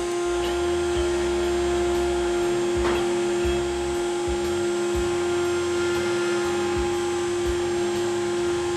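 6090 CNC router's spindle running with a steady high whine, while the axis motors drive the head in short start-stop moves as a ball nose mill ramps down in a zigzag into the wood.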